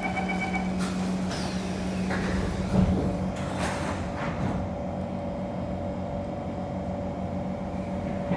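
Kawasaki C151 train car interior: the door-closing chime beeps rapidly until under a second in, then the doors shut with knocks and a loud thud just before three seconds. A steady low hum from the car's equipment runs underneath.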